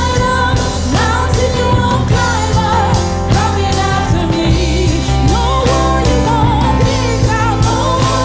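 Worship song: a singer over a full band, with a steady bass line and a regular drum beat.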